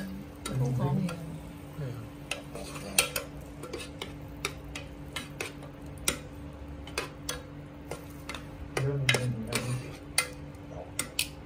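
Metal tongs clicking and tapping against a nonstick grill pan and against each other as pieces of rice cake and onion are turned: irregular sharp clicks, several a second at times, over a steady faint hum.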